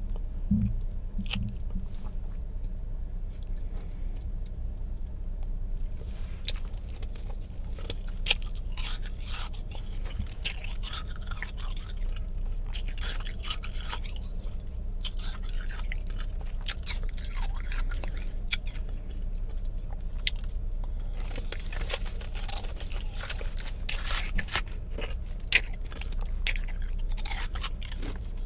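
Close-up chewing and crunching of powdery ice, freezer frost crushed in a blender, in many short irregular crackles, over a steady low hum.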